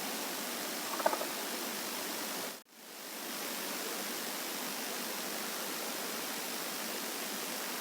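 Steady, even whooshing rush of air in a filtered night field recording, which the recordist takes for a large aircraft passing overhead with no engine sound. A short pitched sound rises out of it about a second in, and the rush cuts out abruptly a little over halfway through before fading back in.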